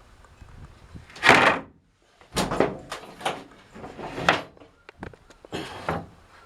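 A series of about five short knocks and scraping or sliding noises, the loudest about a second in.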